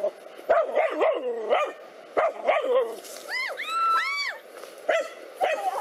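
Dogs barking rapidly at a snake they are attacking, with a run of high, arching yelps about three seconds in, then a few more barks.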